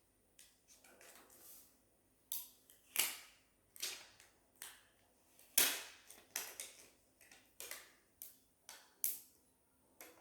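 Protective plastic film being peeled off a remote control, giving irregular sharp crackles and clicks.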